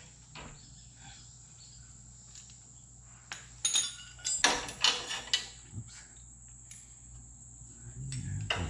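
Wrench and nuts clinking against the metal exhaust flange as the muffler joint is tightened by hand: a handful of sharp metallic clinks in the middle, over a steady faint high whine.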